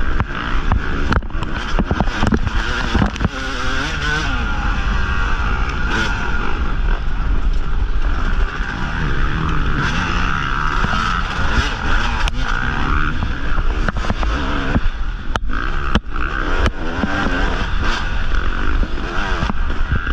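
Yamaha YZ250 two-stroke dirt bike engine revving up and down hard through rough terrain, with frequent knocks and clatters from the bike.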